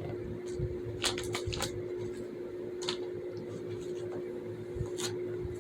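Plastic fidget toys being handled: a few light clicks and taps, several close together about a second in, then single ones near three and five seconds in, over a steady low hum.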